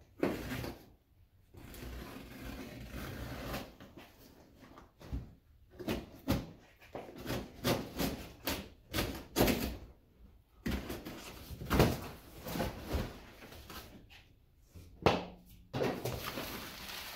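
A cardboard shipping box and its bubble-wrap packing being handled and pulled apart: irregular rustling and scraping with scattered knocks.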